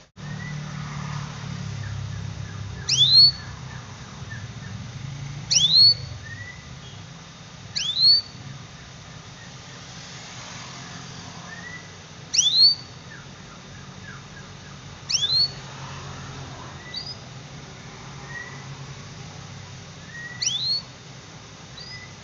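Canary giving a repeated sharp, rising call, one loud upward-sweeping call every two to three seconds, with softer short chirps between them.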